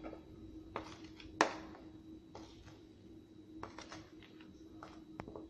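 Light, scattered clinks of a metal spoon and wire whisk against ceramic dishes as gram flour is spooned into a bowl of oil, the sharpest clink about a second and a half in. A faint steady hum runs underneath.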